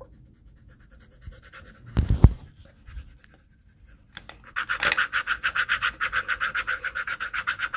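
A couple of knocks about two seconds in, then quick, rhythmic back-and-forth scribbling of a coloring tool on paper, about seven strokes a second, as a drawing is colored in with black.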